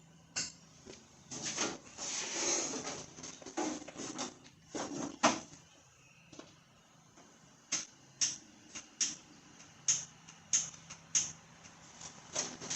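A riding mower's headlight switch being worked by hand: scattered handling noises and a short noisy stretch, then a run of sharp clicks, about two or three a second, as the switch is flicked on and off. The switch has a bad connection and is being exercised after a spray of lubricant.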